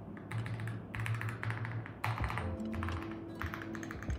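Typing on an Akko MOD007 keyboard with magnetic switches and PBT keycaps: quick runs of key clacks in two bursts, over background music.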